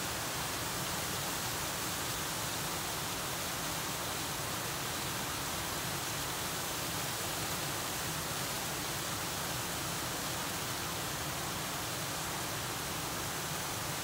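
Small waterfall on a stream: water pouring and splashing in a steady, even rush that does not change.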